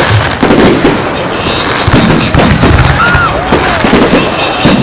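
Fireworks display: aerial shells bursting and crackling overhead, many loud bangs in quick succession with no break.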